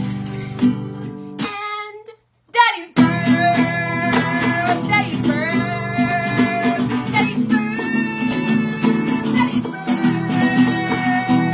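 Acoustic guitar strummed in steady chords with a voice singing over it; the music breaks off for under a second a little after two seconds in, then starts again.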